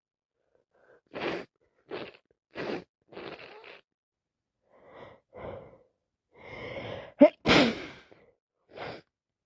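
A woman's wet sneeze from a heavy head cold: a run of short gasping breaths as it builds, then a long rising inhale and a sudden loud sneeze about seven seconds in, followed by a breath.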